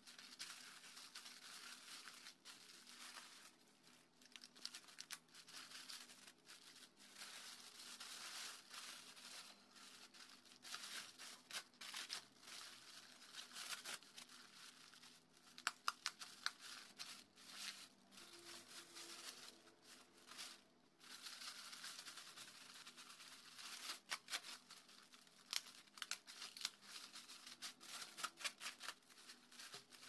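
Thin plastic bag being handled: quiet, irregular crinkling and rustling with sharp crackles as the film is folded, gathered and pulled tight.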